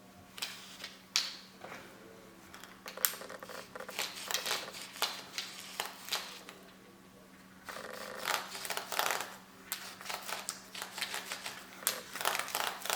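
Irregular small clicks and scratchy strokes of hand work on a wig, pausing for a moment near the middle, over a faint steady hum.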